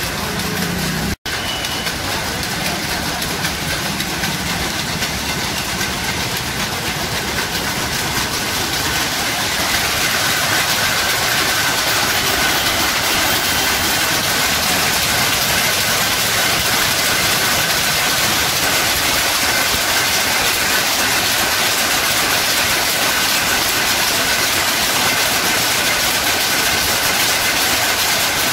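Many power looms running together in a weaving shed: a dense, steady mechanical clatter that grows louder about a third of the way in, then holds level.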